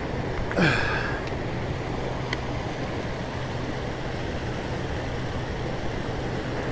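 Steady rush of high water pouring through a dam spillway, with a brief rising squeak about half a second in and a single sharp click a little after two seconds.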